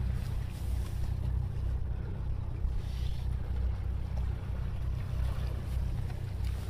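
Wind buffeting the phone's microphone: a steady low rumble.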